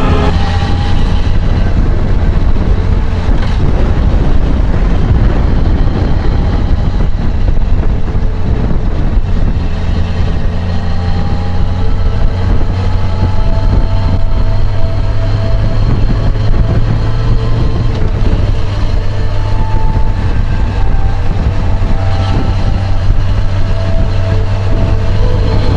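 Yamaha XJ6 Diversion motorcycle's inline-four engine running at a steady pace under way, mixed with heavy wind rush on the microphone.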